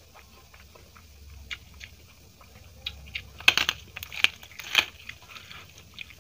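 Close-miked eating sounds: chewing, and fingers mixing rice and dal on a plate. A few sharp crunchy clicks stand out between about three and five seconds in.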